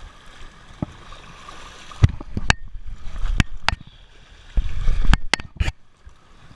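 Water sloshing and splashing against a rock jetty. Over it come several sharp knocks and two spells of low rumble, starting about two seconds in, as the camera is jostled.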